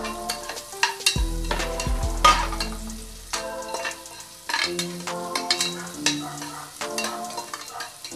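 Metal ladle stirring and scraping diced carrots frying in ghee in a pressure cooker pot, with sharp clicks of the ladle against the pot, over background music.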